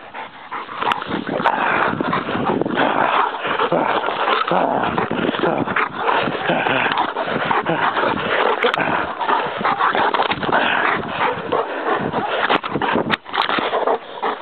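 Large dogs scuffling close to the microphone, with continuous rough dog vocalising and whimpering, and a few sharp knocks from the camera being jostled.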